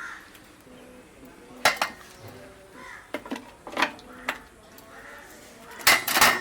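Utensils clinking against dishes: several sharp metallic clinks, each with a short ring, spaced a second or two apart.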